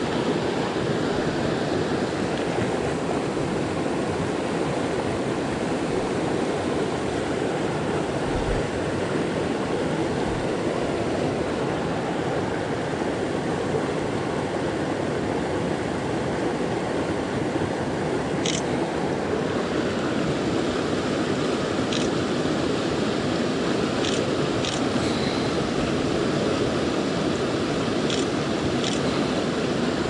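Mountain stream rushing over rocks close by: a steady, loud wash of water. A few faint clicks come in the second half.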